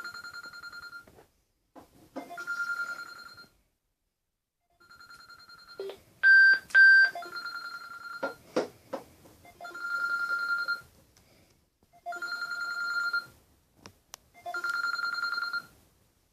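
Electronic phone ringtone played through a Wandfu Bluetooth speaker: a trilling ring about a second long, repeated every two to two and a half seconds. About six seconds in come two short, louder beeps at a slightly higher pitch.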